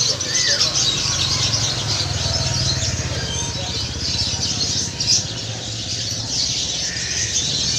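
Many small caged birds chirping over the low, steady running of an engine.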